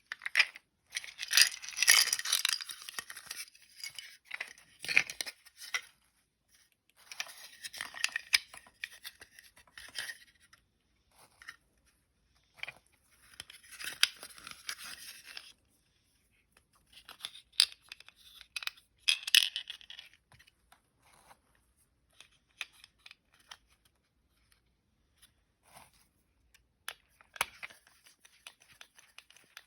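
Hands working on a toy: bursts of scraping, rustling and tearing-like sound lasting a second or more each, separated by sharp clicks and short quiet gaps.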